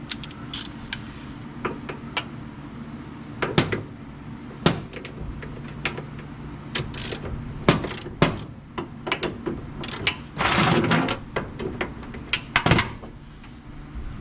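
Scattered metallic clicks and knocks of hand tools and hinge hardware being handled while a truck door hinge is adjusted, with a longer rasping burst about ten seconds in, over a steady low hum.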